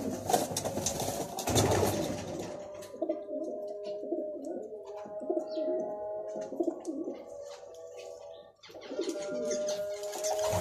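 Racing pigeon cooing in repeated low bouts, with a couple of brief knocks in the first two seconds.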